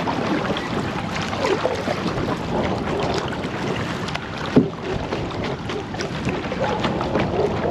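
Strong wind buffeting the microphone over water splashing from a kayak being paddled, with one sharp knock about four and a half seconds in.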